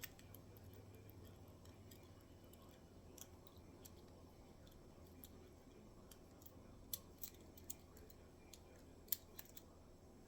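Near silence broken by about half a dozen faint, sharp clicks, mostly in the second half, from a disc-detainer pick turning the discs inside a Chinese disc lock.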